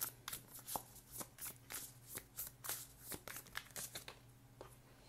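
Tarot cards being shuffled by hand: a quick, irregular run of soft flicks and slaps that stops shortly before the end.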